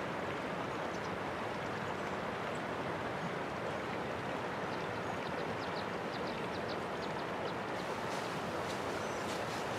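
Steady outdoor rushing noise with faint short high ticks, a quick run of them near the middle.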